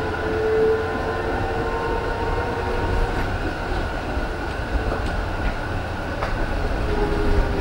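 Stuttgart GT4 articulated metre-gauge tram running, heard from inside its passenger compartment: a steady low rumble from wheels on track with a few steady whining tones over it and an occasional faint click.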